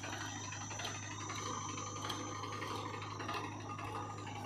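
Powertrac 434 DS Plus tractor's diesel engine running steadily under load, hauling a trolley loaded with mud through soft ground, with a constant low drone and a fine mechanical clatter.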